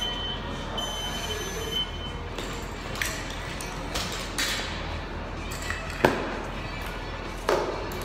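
A gym timer beeping its countdown for the first two seconds or so, then weight plates being loaded onto barbells: several metallic clanks, the loudest about six seconds in.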